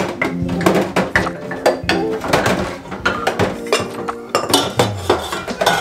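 Ceramic mugs clinking and knocking against each other and the sink as they are hand-washed in soapy water: many quick, sharp clinks one after another.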